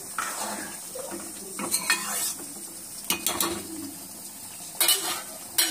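Metal ladle stirring a thick curry in a metal kadai, clattering and scraping against the pan in several short bursts.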